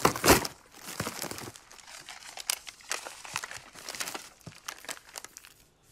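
Hands rummaging in a cardboard box of plastic-wrapped packaged food and unfolding a paper letter: a run of short rustles and crinkles, with a louder crackle near the start.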